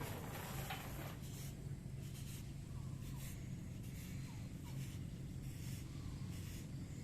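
Toyota Corolla wiper motor carbon brush being drawn across fine 1000-grit sandpaper, giving repeated short scratchy strokes about one a second as the brush is dressed to shape, over a steady low hum.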